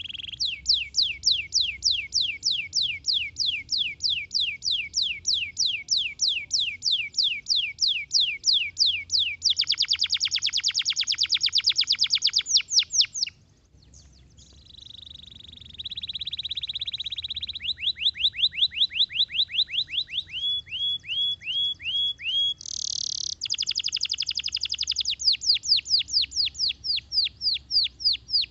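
Domestic canary singing in long runs of fast, evenly repeated falling whistled notes, about four to five a second, with a denser buzzing trill and a short pause about halfway through before the runs of notes resume.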